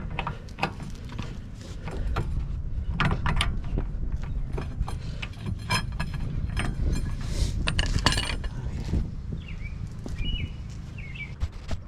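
Metal hand tools clicking and knocking irregularly against the car's axle and suspension parts during a CV axle replacement. A few brief high squeaks come near the end.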